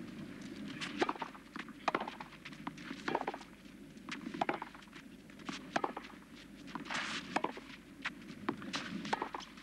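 Tennis racquets striking the ball in a baseline rally on clay, with sharp knocks about once a second as the players trade shots and the ball bounces.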